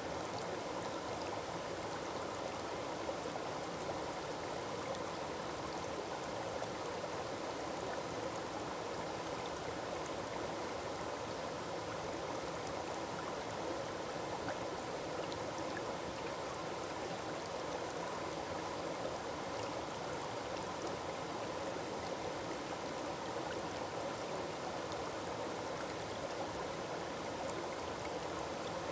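Forest waterfall and stream: water falling and rushing over rocks in a steady, unbroken wash.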